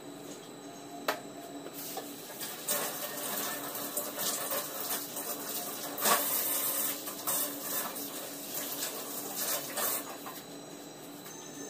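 Kitchen tap running into a stainless steel sink, splashing as something is rinsed under it. It starts a few seconds in and is shut off near the end, after a single knock about a second in.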